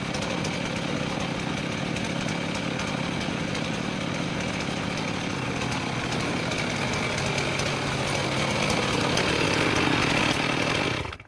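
Chainsaw running steadily on a homemade chainsaw mill, ripping lumber from a log. It gets a little louder toward the end and cuts off suddenly just before the end.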